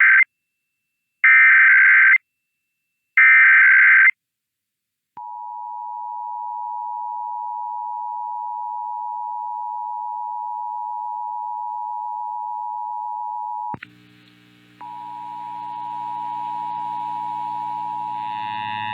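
Emergency Alert System SAME header: three one-second bursts of data tones, about a second apart. Then, about five seconds in, the steady two-tone attention signal starts. It drops out briefly near fourteen seconds and comes back with extra lower and higher tones mixed in.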